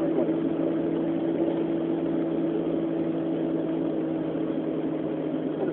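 Steady mechanical hum with a low drone, heard muffled from inside a pocket.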